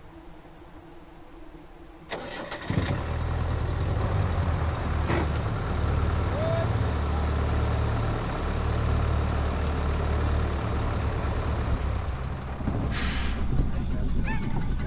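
A truck engine starting about two seconds in, then running at a steady idle, with a short hiss near the end.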